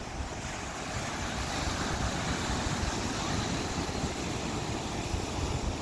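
Ocean surf washing in as a steady rush of noise, with wind buffeting the microphone.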